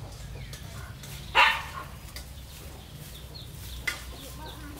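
A dog barks once, about a second and a half in, over a steady low hum with faint bird chirps. A single sharp click follows near the end.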